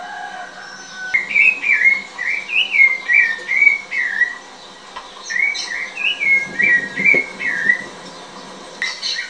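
Clear whistled notes in two quick phrases of about ten short notes each, each note sliding up or down in pitch, with a brief pause between the phrases.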